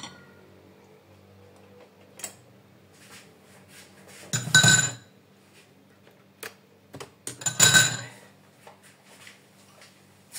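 Metal beaters of an electric hand mixer clinking and clattering: two loud, brief ringing clashes about three seconds apart, with a few small knocks of handling between them.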